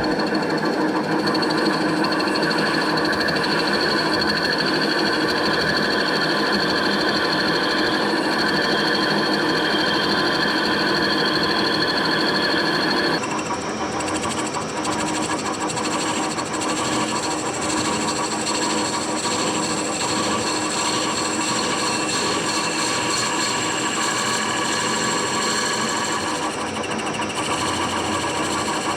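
Metal lathe running steadily while turning wood, its motor and drive making a steady whine over the noise of the cut. About halfway through, the sound changes abruptly to a slightly quieter, different tone.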